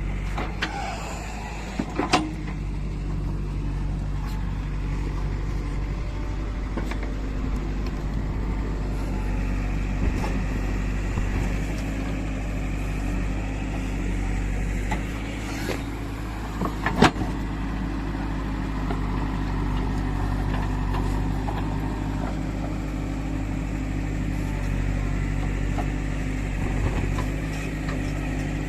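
JCB 3DX backhoe loader's diesel engine running steadily, with two sharp metallic knocks, about two seconds in and again about seventeen seconds in.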